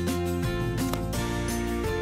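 Background music: a light, steady instrumental track with held notes and a regular beat.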